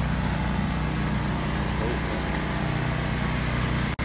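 An engine idling steadily nearby: a constant low hum with a wash of street noise.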